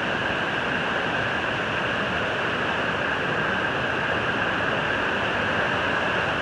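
Waterfall rushing steadily, an even unbroken roar of falling water.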